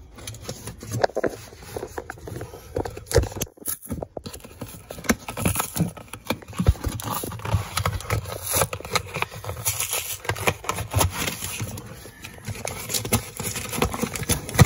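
A cardboard mailing box being handled and cut open: a blade slicing through the packing tape along its seam, with irregular scrapes, taps and knocks on the cardboard.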